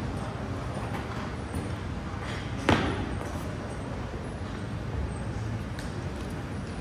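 A single sharp thud about two and a half seconds in, over a steady background hiss.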